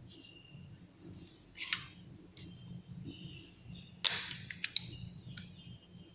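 Light clicks and taps of small plastic paint jars and a plastic paint palette being handled on a table. There is a soft scrape about a second and a half in, a sharper click about four seconds in, then a few quick small clicks.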